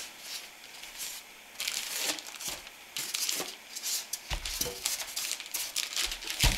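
Clear plastic wrapping crinkling and rustling as a packaged power inverter is handled, with a dull thump about four seconds in and a sharp knock near the end.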